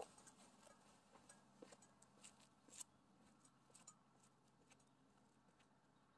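Near silence: faint outdoor room tone with a few small, scattered clicks, mostly in the first four seconds.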